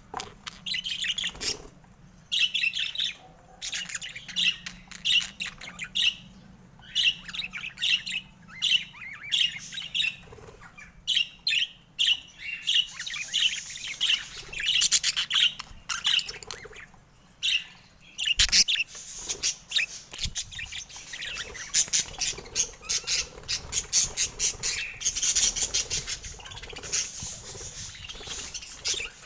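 Pet budgerigars chirping and squawking in a quick, continual run of short calls, with one sharp knock about two-thirds of the way through.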